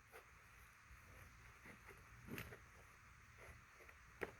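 Near silence with faint handling noises from packaging being searched: a few soft clicks and knocks, the sharpest about four seconds in.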